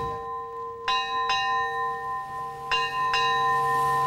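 Ship's bell struck in pairs, two quick strokes then a pause, twice, each stroke ringing on and overlapping the next.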